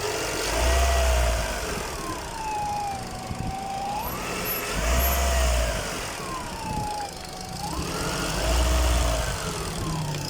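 Peugeot 206 1.6 petrol engine revved three times, each rev bringing a howl that rises and falls in pitch with engine speed. The howl is an unidentified fault noise from the engine bay.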